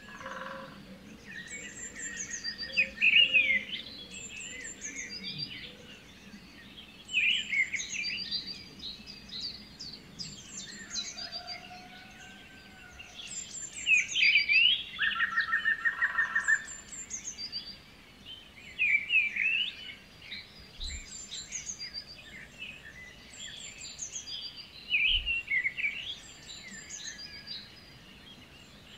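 Small birds chirping and singing: clusters of quick chirps that slide up and down in pitch every few seconds, with a short rapid trill about fifteen seconds in.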